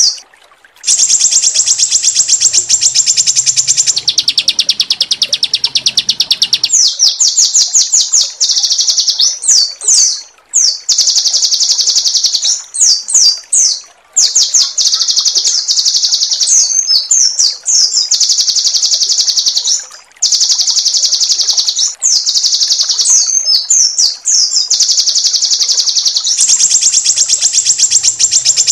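Songbird song recording of the kind played to tutor caged birds. It has long rolls of rapid, high repeated notes lasting a few seconds each, broken by bursts of sharp, sweeping whistled notes, in the "roll tembak" style of fast rolls mixed with harsh "shots".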